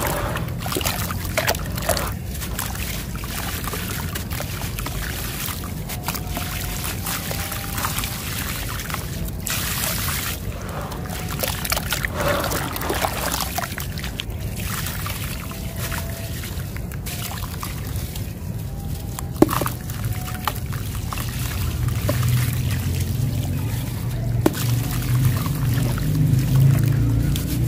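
Hands sloshing and stirring sand-cement in water in a plastic tub, with irregular splashes and trickles as wet cement lumps are crumbled and dropped into the water. It grows busier near the end.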